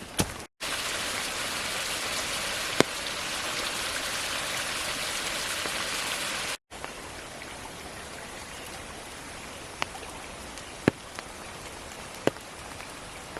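Steady rain falling in wet forest, an even hiss with a few sharp single ticks. It breaks off briefly twice and is quieter after the second break, about six and a half seconds in.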